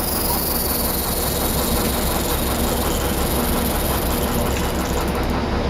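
A loud, continuous high-pitched hissing call from an unseen creature in a tree, a sound that listeners on the spot cannot place as bird or insect; the very high part thins into a pulsing about five seconds in. A low steady hum runs underneath.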